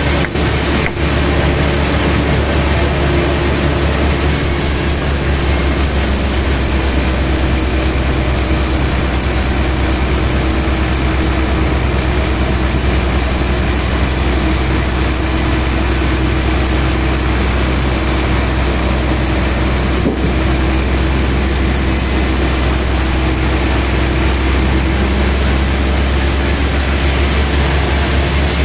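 Sawmill machinery running steadily: a loud, constant low hum with a wash of noise above it that does not let up.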